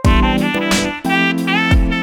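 Background music: an upbeat jazzy instrumental with a saxophone-like lead melody, keyboard and a steady drum beat.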